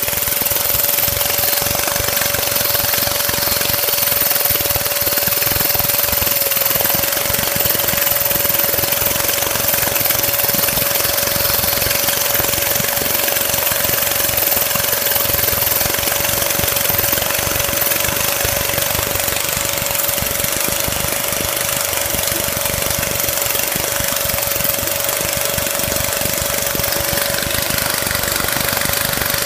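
Homemade two-stroke compressed-air engine running fast and steadily, a rapid chatter of air pulses with hissing air and a steady whine beneath.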